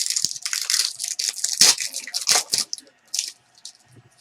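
Trading-card packaging being torn open and crinkled by hand: a quick run of loud ripping and crackling for about two and a half seconds, then one more short crackle.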